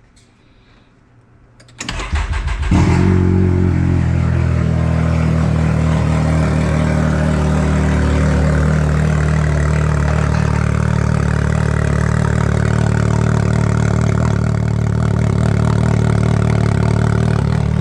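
Can-Am Maverick X3's turbocharged three-cylinder engine, fitted with an RPM drag exhaust pipe and 4-inch muffler, cranks on the starter about two seconds in, catches and settles into a steady idle that is ear-piercing loud, almost like open headers.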